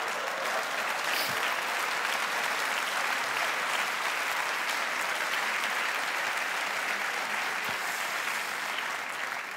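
Theatre audience applauding steadily, a dense clapping of a large crowd that thins and dies away near the end.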